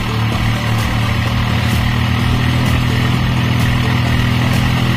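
A farm tractor's diesel engine running steadily while the tractor is bogged in deep paddy-field mud and working to pull itself free. Faint ticks come about once a second over the engine.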